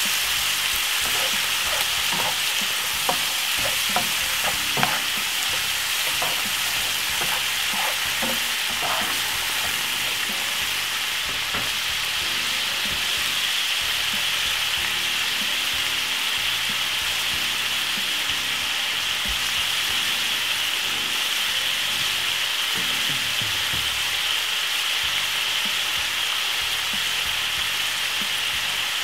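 A frying pan of julienned carrots and peppers sizzling steadily in oil with white vinegar, a sautéing escabeche vegetable sauce. A few small pops and crackles come in the first nine seconds or so.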